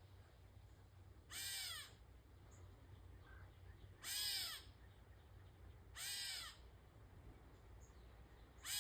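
Catbird giving cat-like mewing calls: four short mews that rise and fall in pitch, spaced about two to two and a half seconds apart, the last right at the end.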